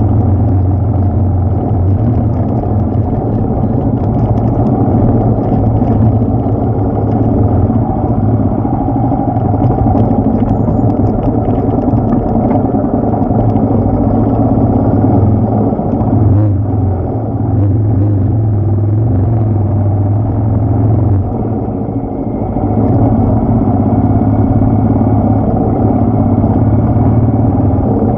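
Royal Enfield Himalayan motorcycle's single-cylinder engine running steadily while ridden, easing off briefly twice, about two-thirds of the way through.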